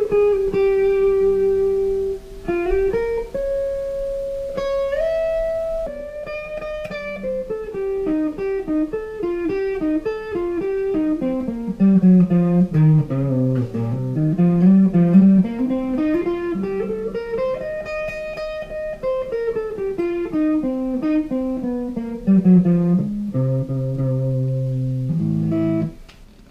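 Electric guitar played through a small NUX Mighty 15SE combo amp: sustained single-note lines with string bends, a long run down to the low strings and back up, then a few low chords. The sound cuts off abruptly near the end.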